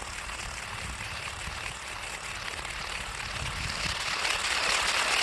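Tape-wrapped RC car (Monster 3.0) running and sliding on asphalt: a steady noisy rush that grows louder about four seconds in.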